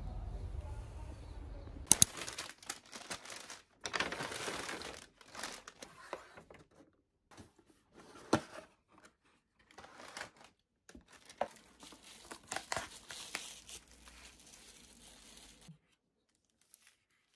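Paper bags and wrapping paper crinkling and rustling in irregular bursts as packages are handled and unwrapped, with a couple of sharp clicks when it begins. A low rumble comes before it, and the rustling stops about a second before the end.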